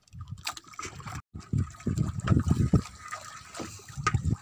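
Water splashing and sloshing irregularly against a small wooden outrigger boat.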